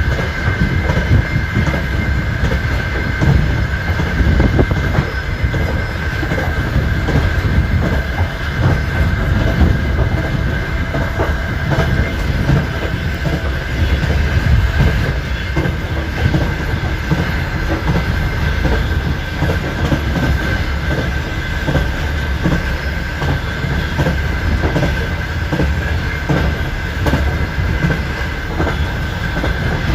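Wheels of an express passenger train clattering over rail joints at speed, over a continuous low rumble. A steady high-pitched whine runs underneath.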